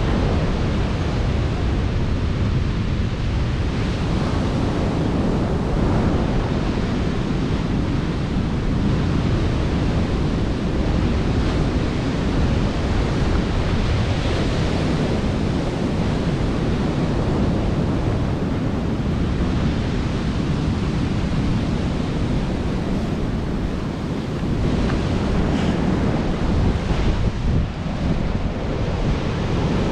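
Rough surf breaking and washing on a sandy beach, a steady rush, with wind buffeting the microphone.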